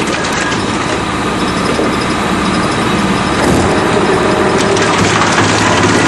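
Drum wood chipper running and chipping wood, a dense continuous noise with a steady high whine over it. It grows a little louder about three and a half seconds in.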